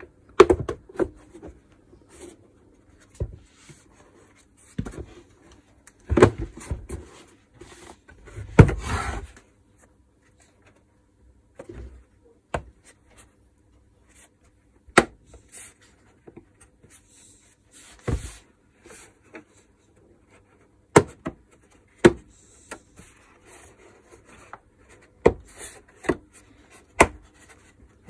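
Hard plastic housing and top cover of a Makita VC2512L vacuum cleaner knocking, rubbing and clicking as they are pressed and worked together to seat the cover's tabs in their guides. Sharp single clicks come at irregular intervals, with a few heavier clattering bumps in the first third.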